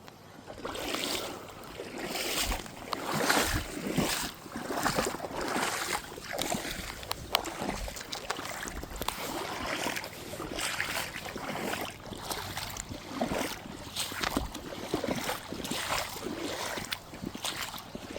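Creek water splashing and sloshing in irregular surges, about one or two a second, as someone moves through or works in shallow water.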